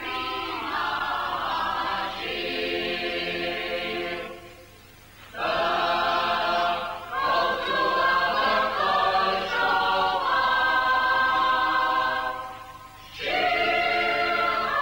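A choir singing slow, sustained chords in three phrases, with short breaks about four and a half seconds and twelve and a half seconds in.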